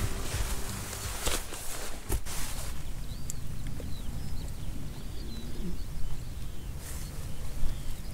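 Faint bird calls, short high chirps, from about three seconds in, over a gusty low rumble of wind on the microphone. A few sharp knocks in the first two seconds.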